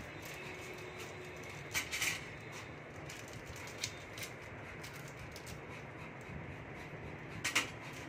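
Quiet room with a low steady hum and a few short clicks of handling noise, two close together about two seconds in and another near the end.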